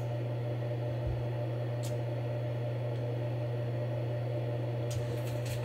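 Steady low hum, with a few short clicks of a computer mouse: one about two seconds in and two near the end.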